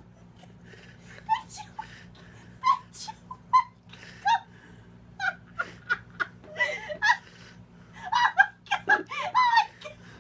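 People laughing in short, broken bursts, with a dog's whines mixed in, over a steady low hum.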